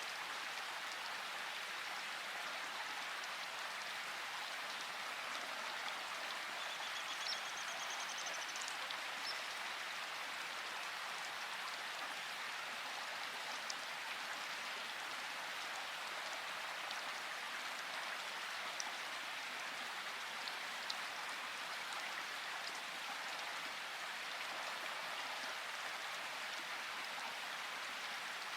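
Steady rain falling, an even hiss with occasional louder drop ticks.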